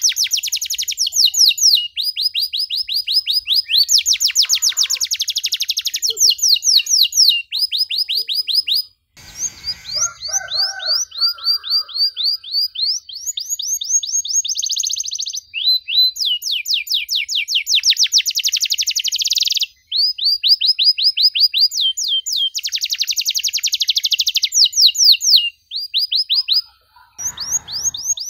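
Domestic canary singing a long song: fast trills, each a rapid run of the same repeated note, switching to a new trill every second or two, with a brief break about nine seconds in.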